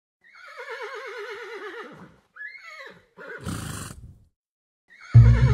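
A horse whinnying: one long quavering neigh that falls in pitch, then a shorter call and a breathy blow. Loud band music comes in right at the end.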